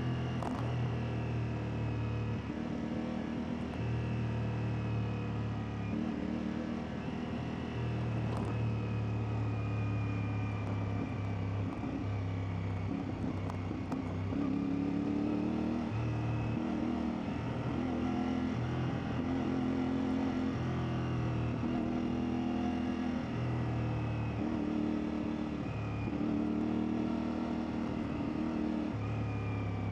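CFMoto 450MT's 449 cc parallel-twin engine running under a rider on dirt, its pitch rising and falling every second or so as the throttle opens and closes.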